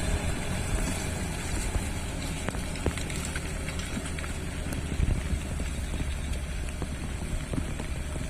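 Diesel engine of a Hino 500 dump truck running steadily under heavy rain, the rain a dense crackling hiss with scattered sharp drop ticks.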